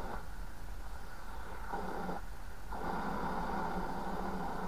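Yaesu FRG-7 shortwave receiver's loudspeaker giving steady static with no station as the set is tuned. The static drops away twice, once for over a second and once briefly, then comes back. No stations come through on any frequency, a fault the owner wonders may be in the front end.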